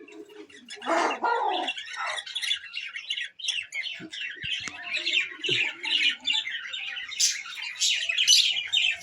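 Chickens calling: a dense run of rapid high chirps and cheeps, with a louder squawk about a second in.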